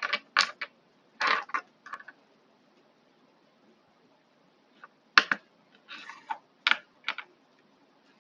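Short clicks and scrapes of small parts and tools being handled at a workbench, in two bunches with a quiet gap of about three seconds between them.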